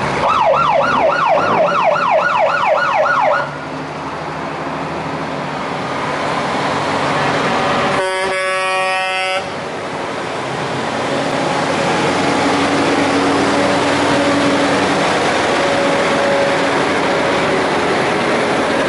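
A fire engine's siren wailing up and down fast, about three sweeps a second, for about three seconds as it passes, then a truck's air horn sounding once for about a second and a half. Heavy truck engines and road noise run steadily under it as the trucks go by.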